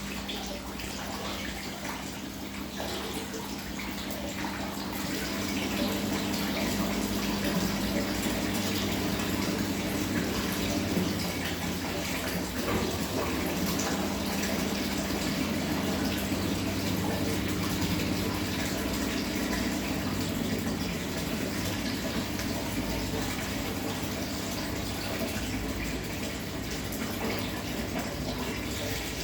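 Samsung washing machine running: water rushing in the machine over a steady mechanical hum, growing a little louder a few seconds in.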